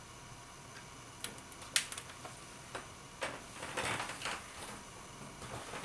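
A hardcover book being handled: a few light clicks and taps, then about a second and a half of rustling as a hand rubs and slides over the cover and pages.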